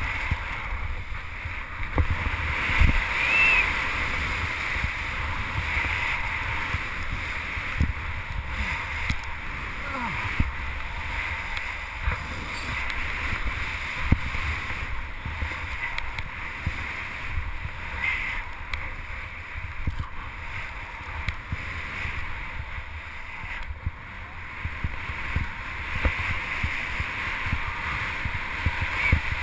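Skis hissing through deep powder snow on a fast downhill run, mixed with a steady low rumble of wind buffeting a helmet-mounted action camera.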